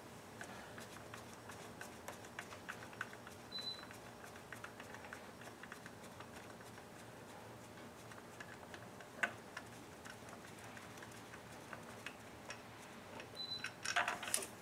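Faint, scattered clicking of a ratchet wrench and light metal taps of tools as a bolt is worked on the power steering pump deep in the engine bay, with a sharper click about nine seconds in and a quick run of clicks near the end.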